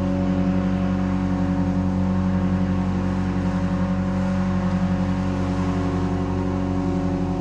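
Wolff & Associés pipe organ holding a dense cluster of sustained low tones that beat against each other in a fast, even pulse. Amplified percussion instruments vibrate in sympathy with the organ tones.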